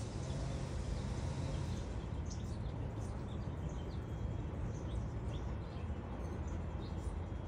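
Outdoor background sound: a steady low rumble with small birds chirping briefly and repeatedly.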